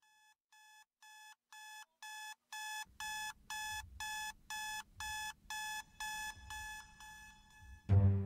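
Electronic alarm beeping in a steady pattern of short single-pitched beeps, about two a second, growing louder over the first few seconds and fading near the end. Just before the end, music comes in with heavy low drum-like hits.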